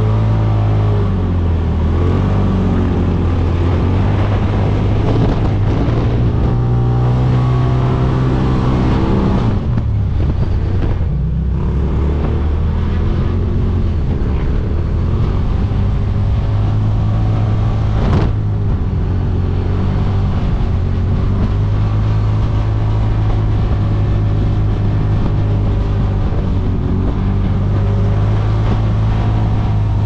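Side-by-side UTV engine running hard under throttle on sand, heard from inside the cab, its pitch rising and falling with the throttle and easing off briefly about ten seconds in. A single sharp knock sounds a little past the middle.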